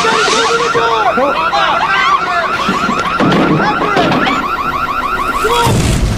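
Electronic facility alarm sounding: a loud, fast, rising beep repeating about seven times a second, with other gliding cries under it. It cuts off near the end with a low thud.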